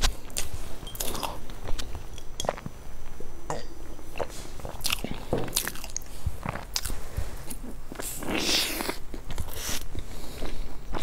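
Close-miked biting and chewing of a crusty toasted pastry: a run of crisp crunches and crackles, with a louder, longer crunch about eight seconds in.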